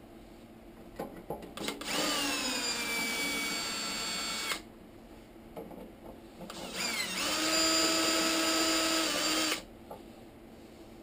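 Cordless drill running in two bursts of about three seconds each, its motor whine dropping slightly in pitch as each burst starts and then holding steady, as it drives the screws of a motorcycle fuel tank's filler-cap ring. A few light clicks come just before the first burst.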